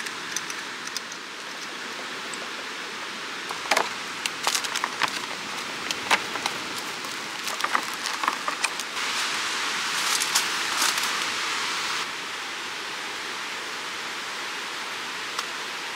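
Steady rushing of a fast valley stream, an even hiss, with scattered clicks and taps from small metal items being handled, then a clear plastic food container crinkling about nine to eleven seconds in.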